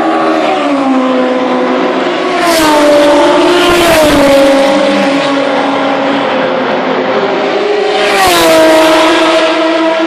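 Historic touring race cars passing at speed, their engines loud throughout. There are two close pass-bys, about two and a half seconds in and about eight seconds in, with the engine note dropping as each goes by and other cars heard behind.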